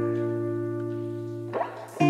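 Background music on guitar: a held chord slowly fading, with a short sliding sound near the end.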